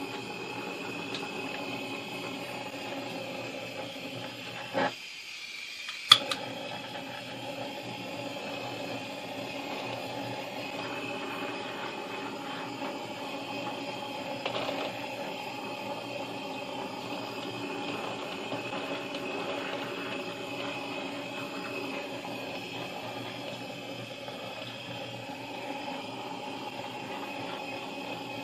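Handheld kitchen blowtorch flame hissing steadily as it caramelizes meringue. The flame cuts out about five seconds in and relights with a sharp click about a second later.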